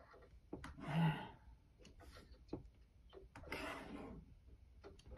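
Picture cards being handled on a table: scattered light clicks and taps, with two short noisy bursts, one about a second in and one about three and a half seconds in.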